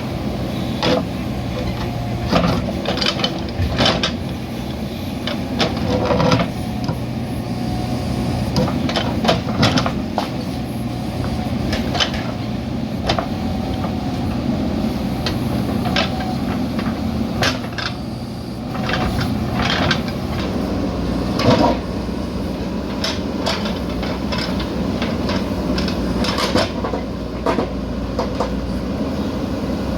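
JCB backhoe loader's diesel engine running steadily under load, with frequent irregular metallic knocks and clanks from the digging equipment.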